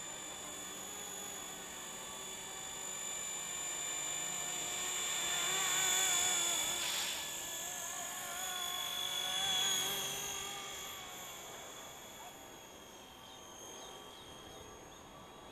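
Microheli S300C micro RC helicopter with a three-blade main rotor, driven by a 4200 kV 2627 brushless motor, hovering and manoeuvring with a steady high-pitched whine at about 75% head speed. The whine wavers and grows louder as it passes close about six and ten seconds in, then fades as it flies off.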